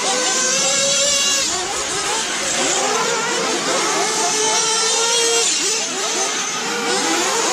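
Several radio-controlled off-road race cars running laps together, their motors whining and revving up and down in overlapping rising and falling pitches as they accelerate and brake around the track.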